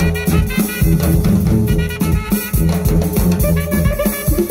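Live band of saxophone, tuba and drum kit playing a driving jazz groove: the tuba holds a low bass line under saxophone lines, with busy drumming.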